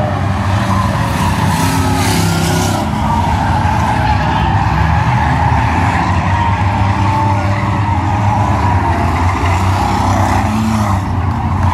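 A field of stock cars racing on a short oval, many engines running at once, with engine notes rising and falling as the cars pass and work through the turns.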